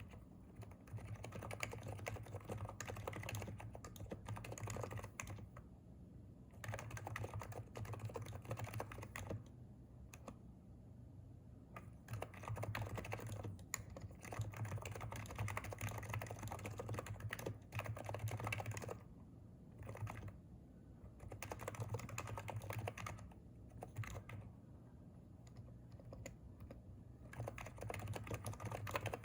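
Typing on a Hansung contactless electrostatic capacitive keyboard: runs of rapid keystrokes lasting several seconds, with brief pauses between them.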